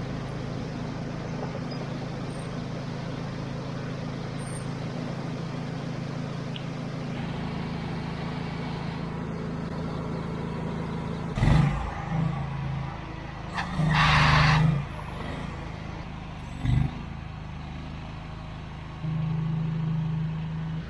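An engine running steadily with a low drone, broken a little past halfway by several short, louder bursts of noise. The drone grows louder near the end.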